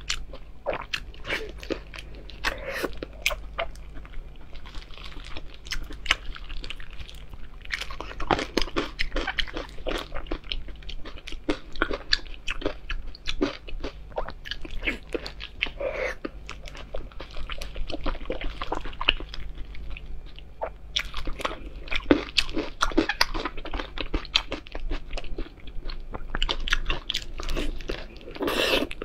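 Close-miked biting and chewing of braised pork belly, a dense, irregular run of quick mouth clicks and smacks.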